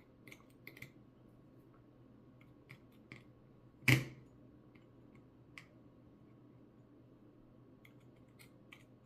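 Small sharp clicks and taps of repair tools against an iPhone 11 Pro Max during teardown, with one louder click about four seconds in.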